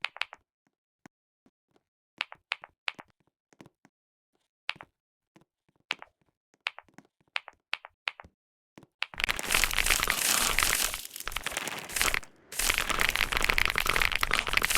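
Computer keyboard being typed on: separate, scattered keystrokes for about nine seconds, then fast continuous typing with a short pause partway through.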